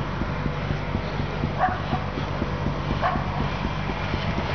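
Small petrol engine of a Euro Shatal CS502HD asphalt saw running steadily, with a quick even pulse under a low hum. A dog barks a few times.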